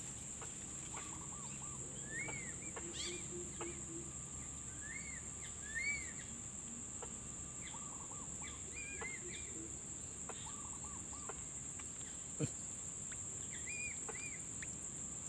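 Outdoor insect chorus as a steady high-pitched drone, with short chirping bird calls repeated in little groups of two or three, and a few faint knocks.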